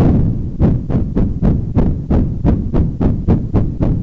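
Bass-boosted white/pink noise from a TDA1524-based voltage-controlled tone filter module, chopped into short bursts by an envelope generator with a shortened envelope. It makes a steady run of about three deep thuds a second, each starting sharply and dying away fast. It is a sound effect meant as approaching trolls' footsteps.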